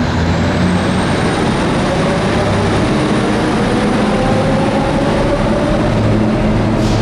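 R77E electric subway locomotives running through a station: a steady loud rumble of wheels on rail, with a thin motor whine that rises in pitch over the first second or so as they pick up speed, then holds steady.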